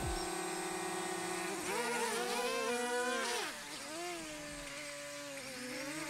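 Buzz of a small quadcopter drone's propellers, rising and falling in pitch as it is flown in close and hovers, then steadier near the end.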